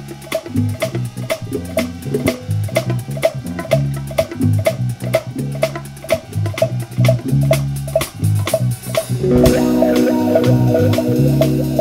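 Live instrumental funk groove on electric guitar, bass guitar and drum kit, with a steady beat. About nine seconds in the band gets louder and fuller as held guitar chords come in over the bass line.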